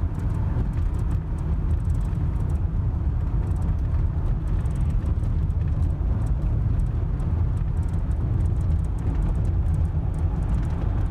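Steady low road rumble heard from inside a Honda Odyssey minivan's cabin as it drives on a wet road: tyre and road noise with the engine underneath.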